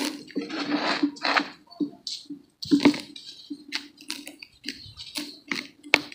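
Dry brown dirt clumps crumbling and crunching between the hands, with loose powder and grains pouring back into a tub of dirt. Irregular bursts of soft hissing mixed with sharp crackles, one of the sharpest near the end.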